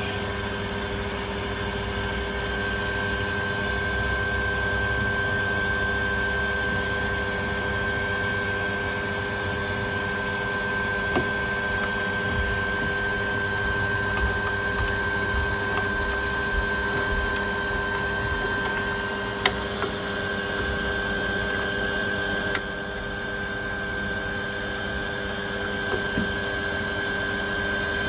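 Steady machine hum with several constant tones, broken by a few sharp clicks and taps, two of them louder past the middle.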